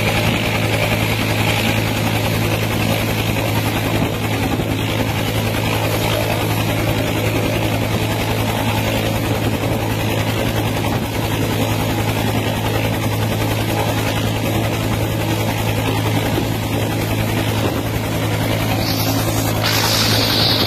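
Bell UH-1 Huey helicopter running on the ground with its rotor turning: a steady turbine and rotor drone with the rapid, even beat of the blades.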